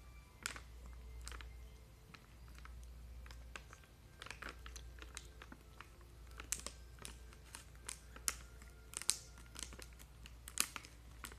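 A cat crunching and chewing dry Temptations Jumbo cat treats: a string of sharp, irregular crunches that come more often from about halfway through.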